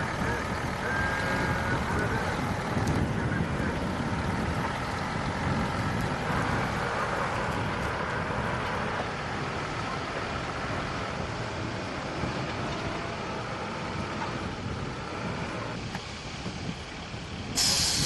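Forestry fire trucks' engines running, a steady low rumble mixed with noise. Near the end the sound cuts to a louder hiss.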